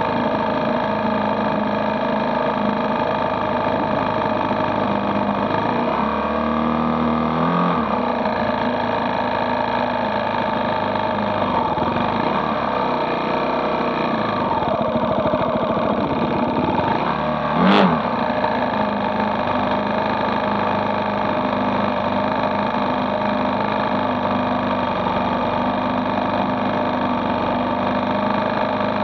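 Dirt bike engine idling steadily close by, while dirt bike engines rev up and down a few times, with a short, loud throttle blip about two-thirds of the way through.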